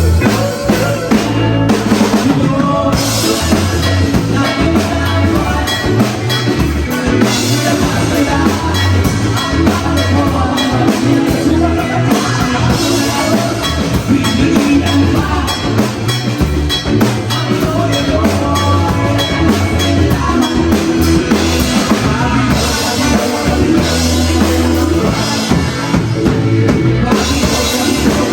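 Local rock band playing live, led by a drum kit with bass drum and rimshots.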